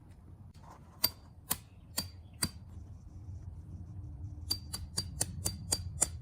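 Sharp metal-on-metal taps, each with a short bright ring: four strikes about half a second apart, then a faster run of about seven near the end.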